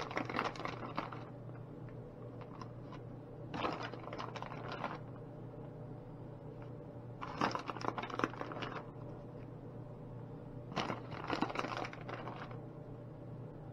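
Plastic bag of shredded cheese crinkling in four short bursts as it is tipped and handled, over a steady low hum.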